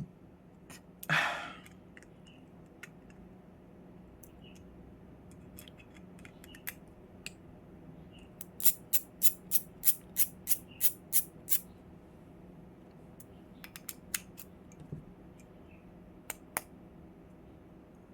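Small hard clicks from balisong parts being handled during reassembly as the bite handle goes back on: a brief rustle about a second in, scattered single clicks, then a quick run of about a dozen clicks at roughly four a second, and a few more clicks near the end.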